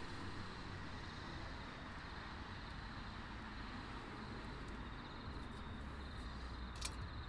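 Steady outdoor background of distant road traffic. Near the end comes a single sharp scratch, a match being struck to light a hexamine stove.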